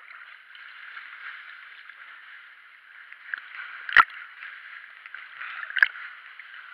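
Sea water sloshing and gurgling inside a sea cave, a steady wash, with two sharp knocks about four seconds in and again near six seconds.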